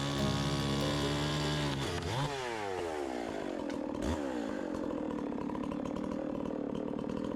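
NEO-TEC NH872 71cc two-stroke chainsaw running at high revs, then let off about two seconds in and dropping to a lower idle, with a short blip of the throttle around the middle.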